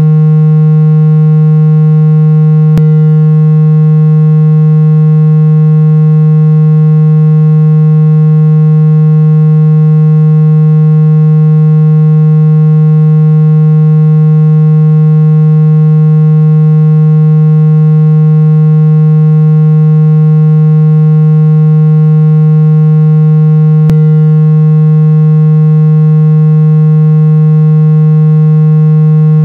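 Loud, steady low tone of about 160 Hz with a buzzy stack of overtones, unchanging in pitch and level: a synthesized speaker-cleaning tone played at full volume to shake trapped water out of a phone speaker.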